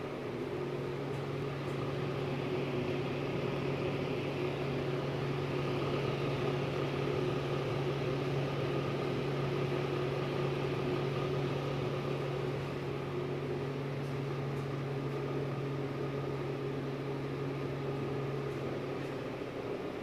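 Broan wall-mounted fan-forced electric heater running: its fan motor gives a steady low hum over the even rush of air through the grille. The low hum drops away near the end.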